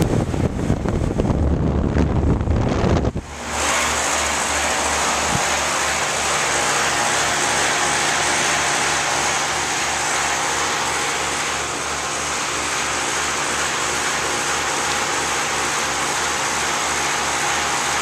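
Old Lennox air-conditioner condenser unit running: its fan makes a steady whoosh over a low, evenly pulsing hum. For the first three seconds there is a heavy buffeting rumble as the fan's discharge air hits the microphone held over the top grille, then the sound settles.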